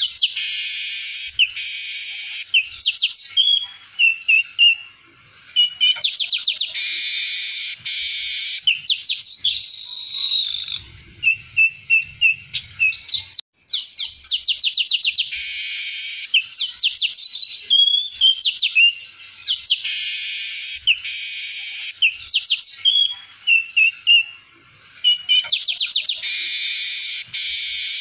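Streaked weaver singing a long, varied song: fast trills of ticks, short sliding whistles and repeated harsh, hissing buzzes lasting a second or two, with a few short pauses.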